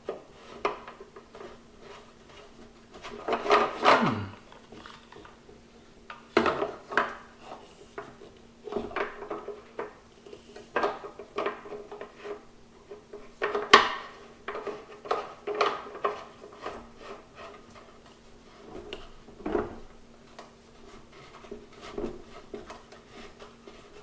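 Metal leg of a Cadac Carri Chef 2 portable gas barbecue being screwed into the burner base by hand: irregular knocks, clicks and rubbing of metal parts, with one short falling squeak about four seconds in.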